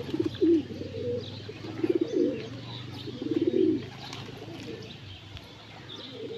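Domestic pigeons cooing: three throaty coo phrases, about a second and a half apart, with faint higher chirps of other birds.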